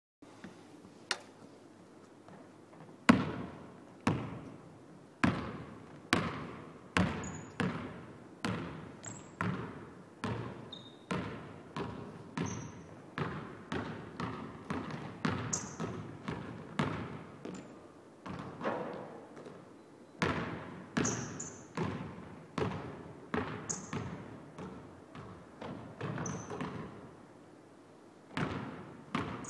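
Basketball dribbled on a hardwood gym floor, each bounce echoing through the large empty hall, roughly one to two bounces a second with a couple of short pauses. Short high sneaker squeaks come in between the bounces.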